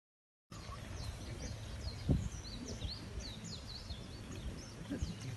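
Small birds chirping repeatedly over a steady low outdoor rumble, starting about half a second in, with a single dull thump about two seconds in.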